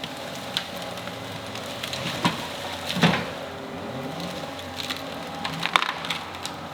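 John Deere 333G compact track loader's diesel engine running with its pitch rising and falling under load, while branches and deadwood crack and snap as the debris grapple pushes through fallen timber. Several sharp cracks, the loudest about three seconds in.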